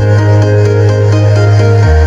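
Electronic music played through a Tronsmart Bang Max portable party speaker. A loud held bass note drops to a lower note near the end, under a repeating melody of short notes.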